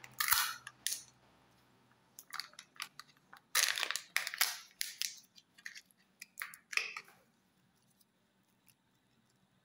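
Peel-off seal on the toy half of a Kinder Joy egg being pulled back, crinkling and tearing in a series of short crackly bursts over the first seven seconds.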